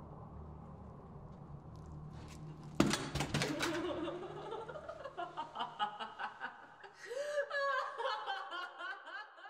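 A low steady drone, cut by a sudden loud hit about three seconds in, followed by someone laughing in quick, choppy bursts that rise and fall in pitch until the end.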